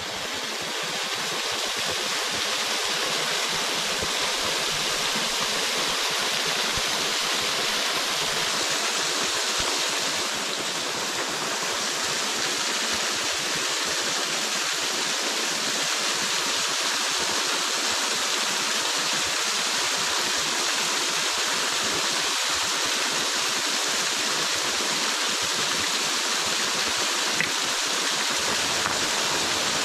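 Small woodland waterfall pouring over a rock ledge into a pool: a steady, loud rush of falling water.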